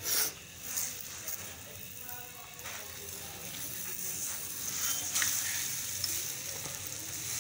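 Egg-topped paratha sizzling on a hot flat griddle (tawa), with a couple of short knocks near the start. A spatula works under it and the paratha is flipped about five seconds in, and the sizzling grows louder as the egg side meets the pan.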